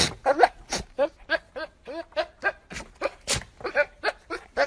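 Goat bleating in a rapid string of short, stuttering calls, about three a second, each bending in pitch.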